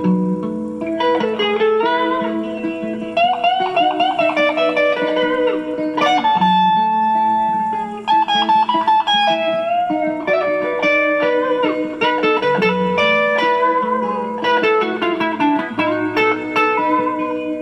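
Electric guitar played through effects pedals: a melodic lead of single notes with string bends and vibrato over sustained low notes.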